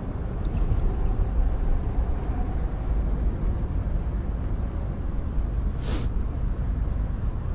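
Steady low outdoor rumble, with a brief hiss about six seconds in.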